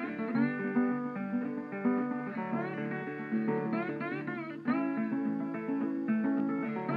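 Background music: a guitar playing plucked notes, many of them sliding in pitch.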